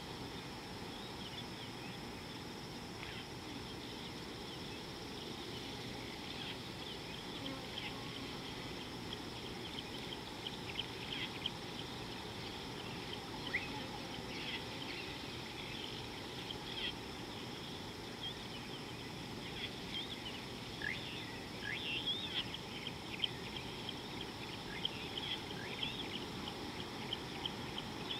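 Many short bird chirps and calls, sparse at first and busier from about ten seconds in, over a steady insect buzz and a low, even background noise.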